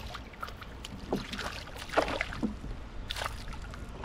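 A hooked fish thrashing and splashing at the water's surface in several irregular bursts as it is reeled in toward a canoe.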